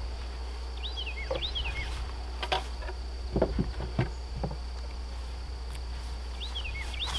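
Wooden beehive box and its metal-topped outer cover knocking and bumping as the hive is closed up after an inspection: a handful of short, dull knocks in the middle, over a steady low rumble.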